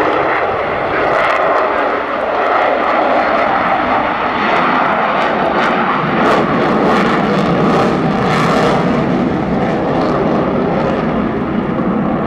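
Avro Vulcan delta-wing bomber's four Rolls-Royce Olympus turbojets making a loud, steady jet noise as the aircraft flies a banking display pass overhead.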